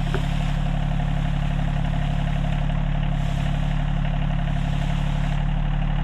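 Rural King RK24 compact tractor's diesel engine running steadily at a constant speed.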